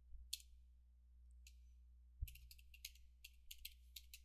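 Computer keyboard typing, faint clicks of single keystrokes: a couple of isolated key presses, then a quick run of clicks from about two seconds in, with one dull knock as it starts.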